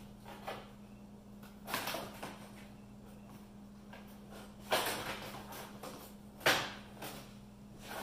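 Metal knocks and clanks as a steel sawmill bandsaw blade is handled and loaded into a sharpening jig: four separate knocks, the loudest about four and a half and six and a half seconds in, over a low steady hum.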